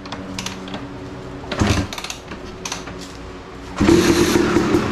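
Freshly rebuilt Yamaha YZ250 two-stroke dirt bike being kickstarted: a few knocks from the kick lever, then about four seconds in the engine catches and runs loudly.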